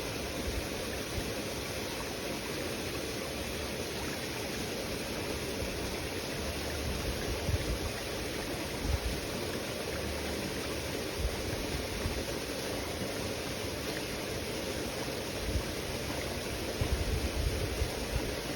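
Steady rushing of flowing water, with a few low thumps about halfway through and again near the end.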